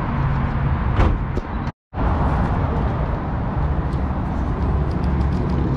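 Steady low outdoor rumble with no clear tones. There is one sharp knock about a second in, and the sound drops out completely for a moment just before two seconds in.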